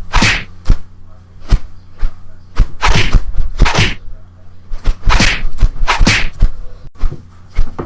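A quick run of sharp cracks and swishing whooshes from stock sound effects, several in each second, over a steady low hum.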